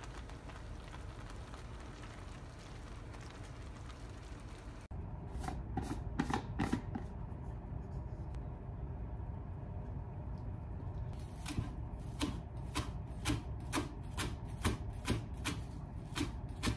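A steady sizzling hiss from a frying pan as spaghetti is tossed with chopsticks in tomato sauce. About five seconds in, a few sharp plastic clicks from a clip-lock storage container being opened. Then a kitchen knife chops green shiso leaves on a plastic cutting board, about two strokes a second.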